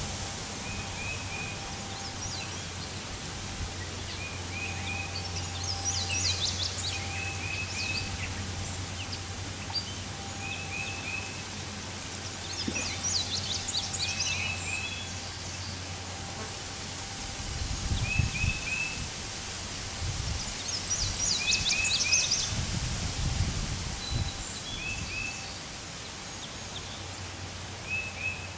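Outdoor wind rumbling on the microphone, with heavier gusts in the second half as the wind fills a large parachute canopy. Over it a bird repeats a short chirping phrase every second or two, and louder trills come a few times.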